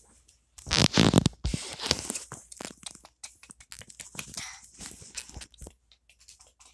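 Rustling and crackling handling noise right against the microphone, with many small clicks and knocks, loudest about a second in and then thinning out, as toys are moved about close to the phone.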